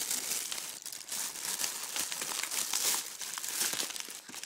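A small packaging bag being opened and handled by hand: a dense run of quick crackles.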